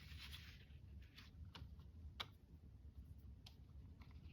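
Near silence with a light rustle at the start and a few faint, scattered ticks: a needle and thread being worked through punched holes in paper.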